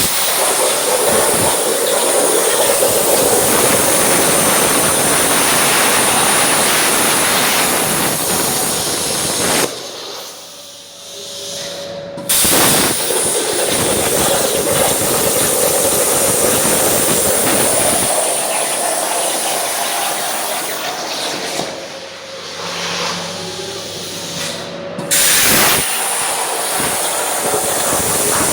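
Hypertherm Powermax 105 plasma torch cutting steel plate: a loud steady hiss of the arc and air jet, with a high whistle over it. It stops twice, about ten and about twenty-two seconds in, and each time starts again abruptly a couple of seconds later as the next cut fires.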